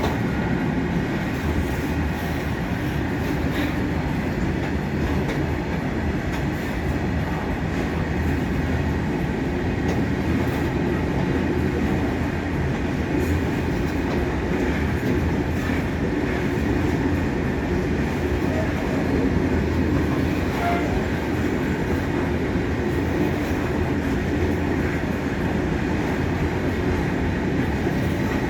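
Freight train running at high speed, a steady rumble of its wheels on the rails.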